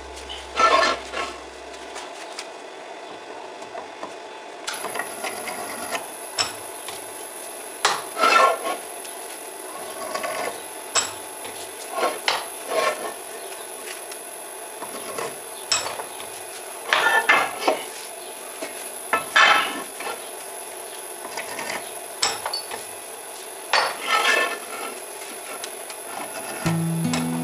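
Drill press drilling into a metal plate at about 190 rpm: short, irregular bursts of metallic scraping and clattering as the twist drill cuts. A thin steady high whine comes in about five seconds in as the motor starts.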